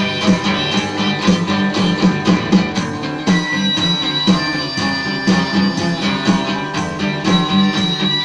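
Rockabilly music with guitar over a steady, driving beat, no vocals.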